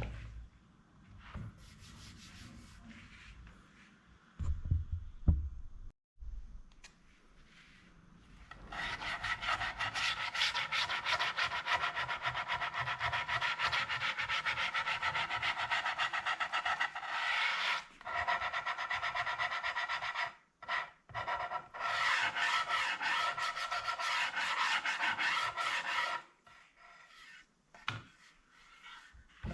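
An abrasive tool worked steadily over wood: a fast, even scraping that starts about a third of the way in and runs for most of the rest, pausing briefly twice. A few soft knocks come before it.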